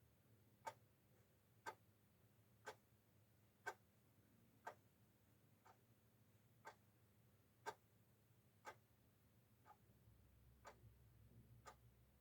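Faint, even ticking of a clock, one tick about every second, in an otherwise quiet room.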